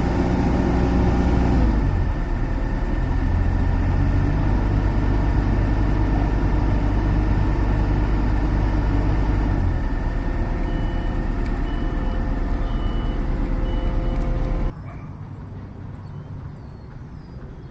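Heavy diesel engine of the loaded excavator or its transport truck running steadily with a deep rumble, joined for a few seconds by a series of short, evenly spaced beeps. Near the end the engine sound drops away abruptly, leaving a much quieter background.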